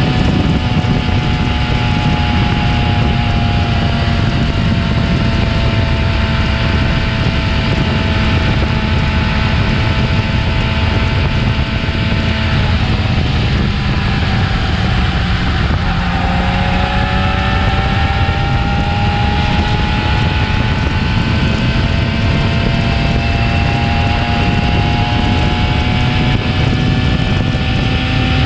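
Yamaha R6's stock inline-four engine running steadily under a constant rushing noise. Its pitch sinks slowly through the first half, dips around the middle, then climbs gradually again.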